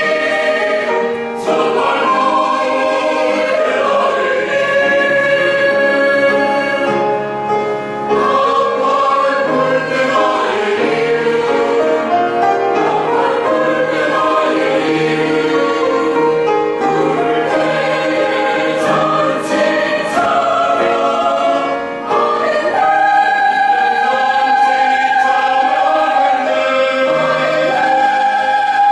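Church choir singing a hymn in several voices, with long held chords.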